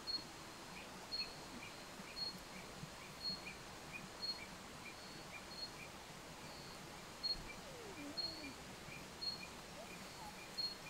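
Night-time forest animal calls: a short, high chirp repeating about once a second over fainter, quicker chirps and a steady hiss.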